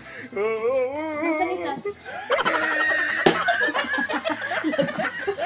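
Two women laughing hard. About three seconds in comes a single sharp smack, an empty plastic bottle swung in the game.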